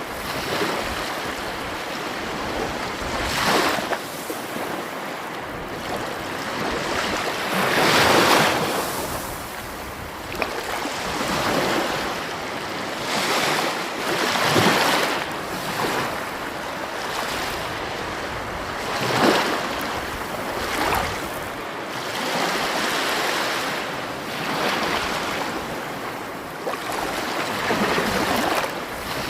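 Sea waves washing in and breaking, a steady rush of surf that swells louder every few seconds.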